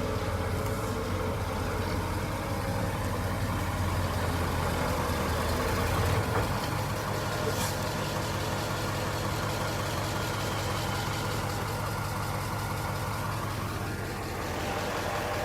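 Heavy diesel engine running steadily, its deep low rumble easing off about six seconds in.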